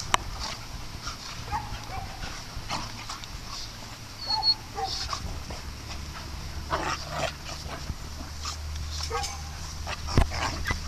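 Several dogs play-fighting, with short yips, whines and scuffling, and one louder sharp sound near the end.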